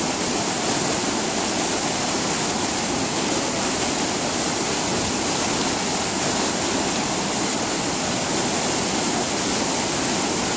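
A river pouring over a waterfall step into churning white water: a steady, unbroken rush.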